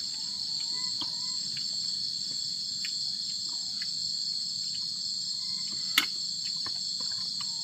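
Steady, high-pitched chorus of forest insects, with scattered small clicks and one sharper click about six seconds in.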